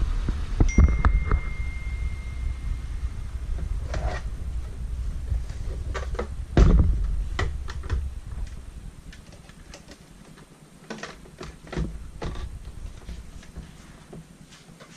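Clicks and knocks of a Rainbow vacuum cleaner's plastic housing being handled and fitted together, with a low rumble of handling for the first several seconds and the loudest knock about six and a half seconds in, then sparser clicks.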